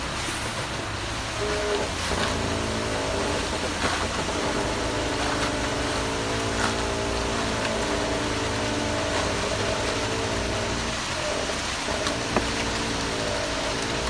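Ready-mix concrete truck running as it discharges concrete down its steel chute: a steady low engine rumble with a wavering hum above it. There are a few sharp knocks of tools against the chute.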